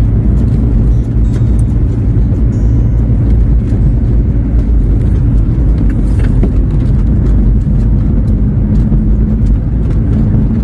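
Steady low rumble of a motor vehicle on the move, engine and road noise without a break, with music playing along.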